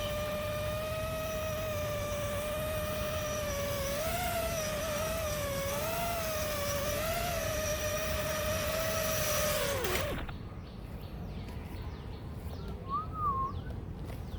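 5-inch FPV quadcopter's brushless motors and propellers whining at a steady pitch that wavers up and down with throttle changes. About ten seconds in, the pitch falls and the motors spin down to a stop.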